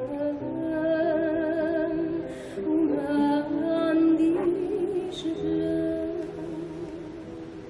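Music: a woman singing a slow melody in long held notes with vibrato, fading over the last few seconds.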